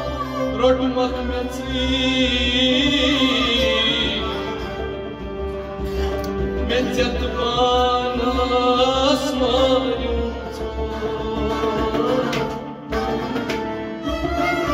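A man singing a devotional folk song in long, held, ornamented lines, accompanied by a harmonium. Near the end the voice drops out briefly.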